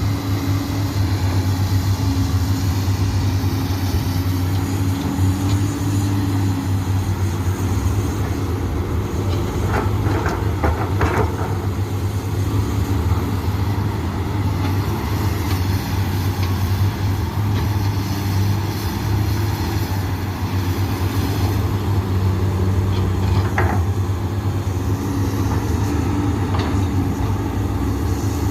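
Komatsu PC200 hydraulic excavator's diesel engine running steadily under working load, its tone wavering as the hydraulics work. A few short clanks come about ten seconds in and again about two-thirds of the way through.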